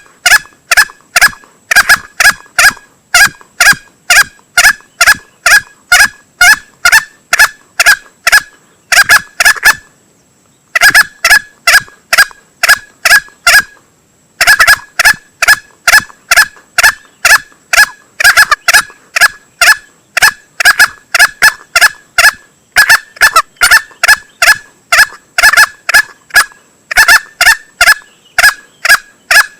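Male green junglefowl calls played as a hunting lure: short, sharp notes repeated rapidly, about two to three a second, with two brief breaks about a third of the way and halfway through.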